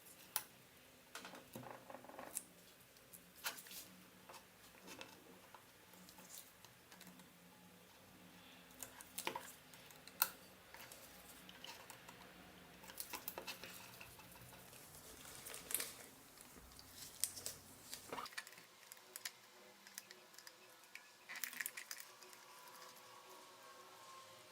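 Scattered small clicks, taps and rustles of hands handling blender parts and tools during the repair, with no motor running.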